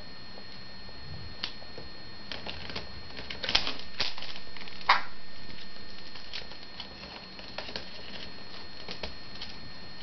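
Scattered light clicks and taps, with a cluster of louder ones about halfway through, from an African grey parrot's beak and claws on a plastic bowl and a wicker basket.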